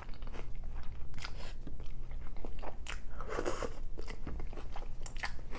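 Close-miked chewing and crunching of food in the mouth, a run of small crackles and clicks with a louder stretch about three seconds in and a sharp click near the end.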